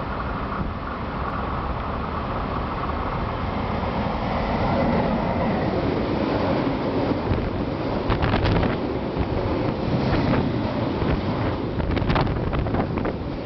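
Freight train rolling past close by: a steady rumble of the locomotive and flat wagons loaded with steel coils, growing louder in the first few seconds, then sharp clacks of the wheels over the rail joints from about halfway in. Wind from the passing train buffets the microphone.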